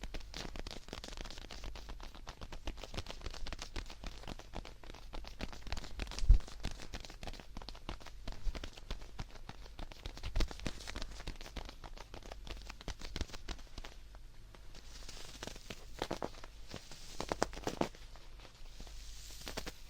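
Close-miked rustling, scratching and crackling handling sounds, irregular throughout, with a soft thump about six seconds in and another about ten seconds in.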